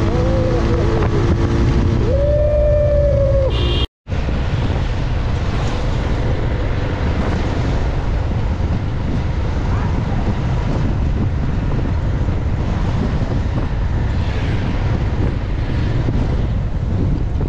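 Wind buffeting the microphone of a camera on a moving motorcycle: a steady, heavy rumbling hiss. It opens with a few seconds of melodic gliding tones that cut off abruptly about four seconds in.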